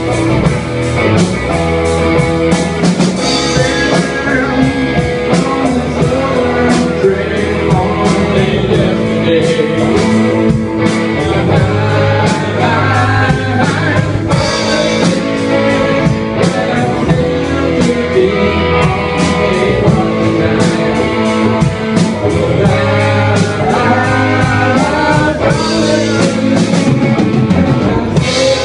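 Rock band playing live: electric guitar, electric bass and drum kit keeping a steady beat, with a man singing into a microphone.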